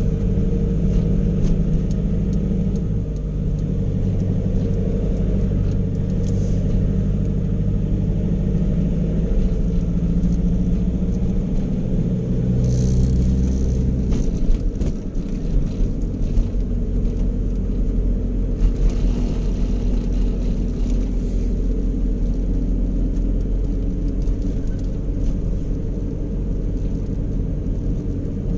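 Motor vehicle's engine and road noise heard from inside the cab while driving: a steady low drone whose pitch shifts a few times.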